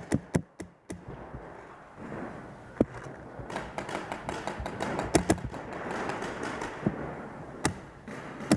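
Paintball markers firing in a warehouse arena: sharp pops, a few single shots in the first second, a quick run of shots around the middle, and single shots near the end.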